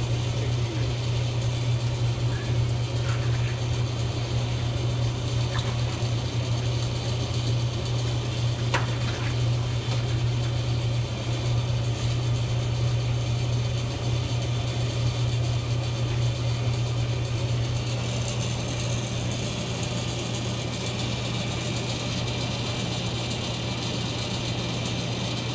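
Electric pump of a syrup filter press running steadily with a low, even hum as it pushes syrup through the press.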